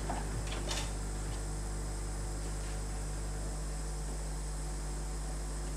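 Steady low mains hum from a reggae sound system's amplifiers and speakers, left running with no music playing. One lower part of the hum drops out about three and a half seconds in.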